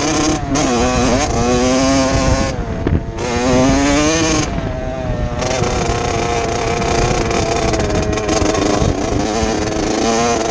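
Two-stroke dirt bike engine revving up and down as it is ridden, its pitch climbing and falling several times with short throttle-offs in between, then pulling more steadily.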